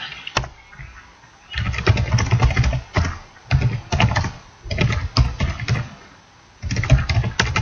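Typing on a computer keyboard: four quick bursts of keystrokes with short pauses between them.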